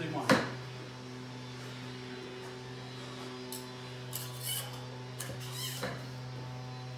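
A sharp metal clank of weight plates being loaded onto a barbell sleeve just after the start. After that a steady low hum, with a few light clicks and scrapes between about four and six seconds in.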